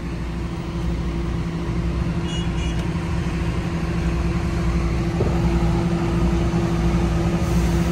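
Truck diesel engine running at low speed, heard from inside the cab as a steady low drone that grows slightly louder. A brief faint high tone sounds about two seconds in.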